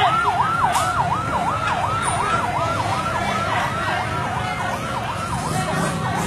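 Police siren in fast yelp mode, its pitch sweeping up and down about three to four times a second, fading somewhat near the end, over the low rumble of vehicle engines.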